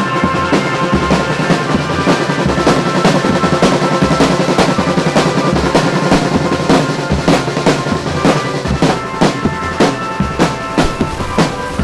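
Marching drum band playing: a bass drum struck with a mallet and snare drums in fast, continuous beats. Steady held notes of other music sound underneath.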